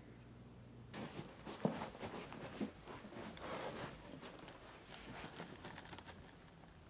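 Footsteps and rustling as a man carries a cardboard box across a room, with irregular light knocks, starting about a second in and fading out near the end.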